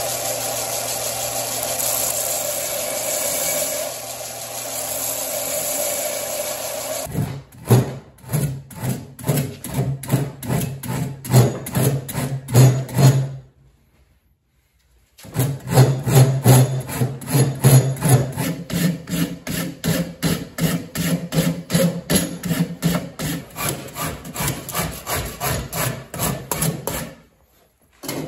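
A file and then a rasp stroked quickly back and forth across an ash-and-walnut axe handle held in a vise, about two to three rasping strokes a second, with a short break partway through. For the first seven seconds or so, before the filing starts, a power tool runs steadily.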